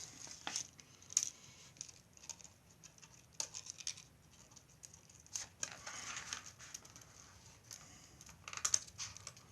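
Stiff mylar film scraping, crinkling and clicking against card as a leg of a mylar spider mount is forced through a small slot in the backing. It comes in short scratchy bursts with scattered clicks, thickest around the middle and again near the end.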